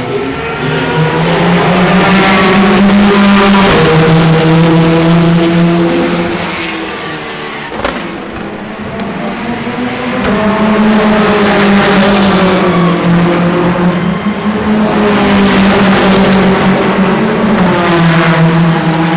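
Race car engines passing at speed down the main straight, loud, in two waves, about a second in and again about ten seconds in. Each time the engine note holds and then steps down in pitch.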